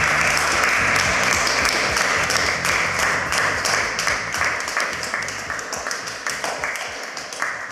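Wedding guests applauding, many hands clapping together, loud and even for about four seconds and then gradually dying away.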